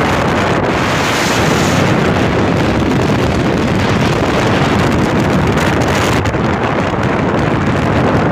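Strong wind noise battering a phone's microphone on a moving motorcycle: a loud, steady rush that buries any engine or road sound.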